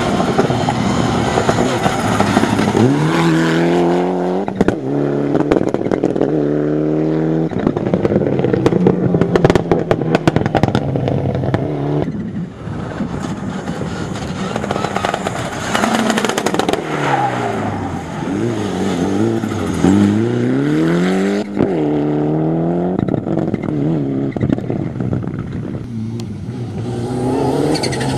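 Citroën C2 rally car driven flat out: the engine revs climb in short bursts through several gearshifts, then drop and pick up again as it brakes, downshifts and accelerates out of corners. Gravel crackles under the tyres for a few seconds near the middle.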